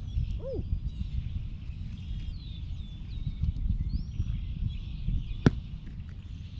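Gusty low rumble of wind on the microphone, with birds chirping a few times and one sharp smack about five and a half seconds in.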